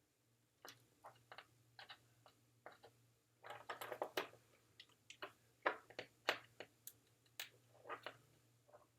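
Faint, irregular small clicks and taps of wires, parts and tools being handled while soldering an ESC's leads onto a drone power distribution board, bunched together about halfway through, over a faint steady hum.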